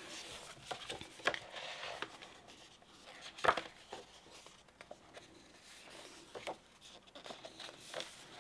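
Pages of a hardcover picture book being flipped by hand: a series of soft paper rustles and light taps, the loudest about three and a half seconds in.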